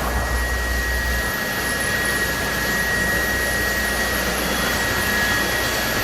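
Steady machinery noise from a sawmill's board grading and sorting line: a continuous roar with a steady high whine over it.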